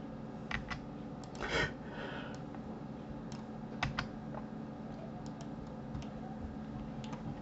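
Scattered clicks of a computer keyboard and mouse, about a dozen spread unevenly, with one louder, short rustling noise about a second and a half in, over a steady low hum.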